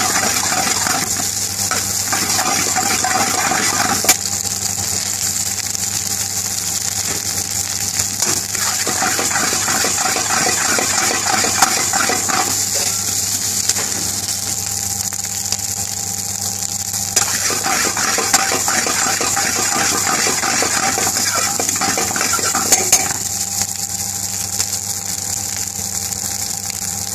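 Egg fried rice sizzling steadily in a wok over a gas flame, with a utensil scraping and knocking against the wok in three bouts of rapid stirring.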